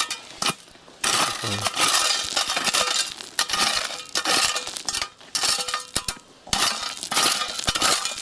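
Gravel crunching and scraping in irregular bursts with short pauses between them.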